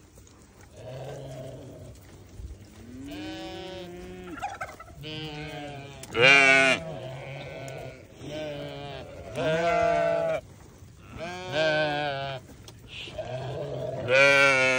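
Sheep and goats bleating, about ten calls one after another every second or two, some overlapping, with loud, high bleats about six seconds in and near the end.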